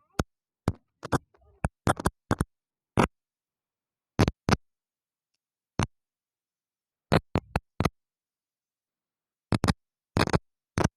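A series of short, sharp clicks and knocks at irregular spacing, some in quick pairs or clusters, with dead silence between them.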